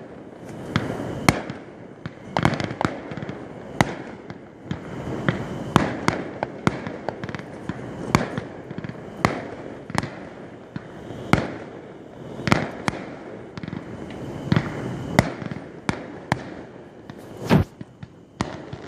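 Fireworks display: aerial shells bursting in an irregular series of sharp bangs, about one or two a second, over a continuous crackling wash. One of the loudest bangs comes near the end.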